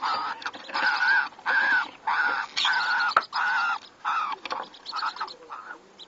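A green-cheeked conure pair calling while mating: a rhythmic run of short, nasal repeated calls, about two a second, growing weaker near the end.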